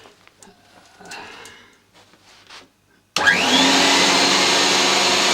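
A few faint handling sounds, then about three seconds in an unmodified vacuum cleaner is switched on: its motor whine rises quickly as it spins up, then it runs steadily and loud, blowing out exhaust air.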